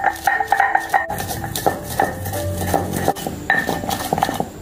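Stone pestle knocking and grinding on a flat stone mortar, crushing red chilies, shallots and garlic into a paste: repeated irregular knocks. Light instrumental background music plays underneath.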